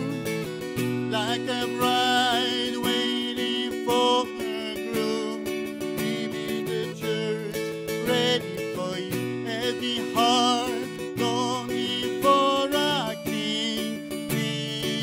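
Acoustic guitar strummed in steady chords, with a man singing a slow melody over it, his held notes wavering with vibrato.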